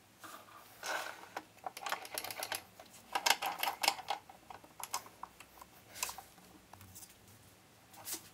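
Irregular light clicks, taps and short scrapes of hand-fitting parts on a wood lathe that is not running: a homemade revolving centre on the tailstock, with a leather-faced wooden cup, brought up against a turned wooden piece. The clicks come thickest in the first half and thin out after.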